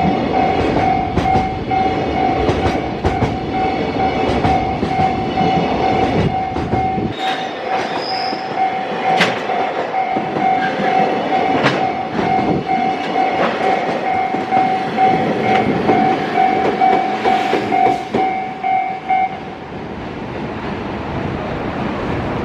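Level crossing alarm ringing in a steady, rapidly repeating tone over a passing freight train, whose wheels click regularly over the rail joints. A heavy low rumble cuts out about seven seconds in, and the crossing alarm stops near the end.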